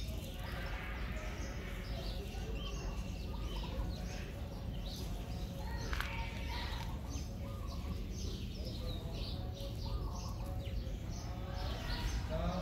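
Small birds chirping and twittering over a low outdoor rumble, with one sharp click about six seconds in.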